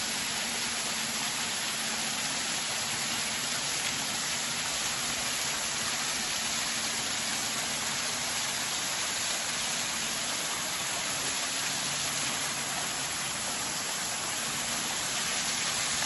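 Waterfall's falling water making a steady, even rush.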